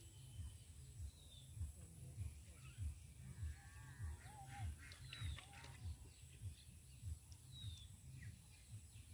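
Faint outdoor pond-side ambience: scattered short, falling bird chirps and, about three and a half seconds in, a brief higher call of several tones, over soft low thuds repeating steadily a little under twice a second.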